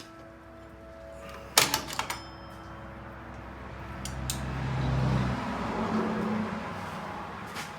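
Sharp metallic clicks and clanks of vise grips on drum brake hardware, a quick cluster about one and a half to two seconds in. Then a louder noisy swell with a low hum that rises and fades over several seconds.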